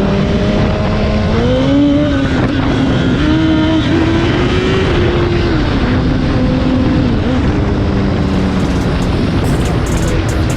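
Honda CBR1000RR inline-four engine running at a steady road speed under a heavy rush of noise, its pitch rising a little about a second in, holding, then easing back down about six seconds in.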